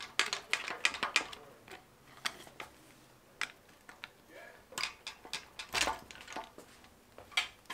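Steel hand tools clicking and tapping on a Honda K20 cylinder head as a flat-head screwdriver and a pry bar work the camshaft and rocker-arm assembly loose. The taps are irregular: a quick run of them in the first second, then single clicks every second or so.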